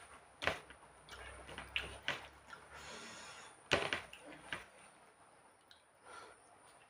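Close-up eating sounds: fingers mixing and squeezing rice on a plate while he chews with his mouth, a few sharp wet smacks standing out, the loudest about half a second in and again just under four seconds in.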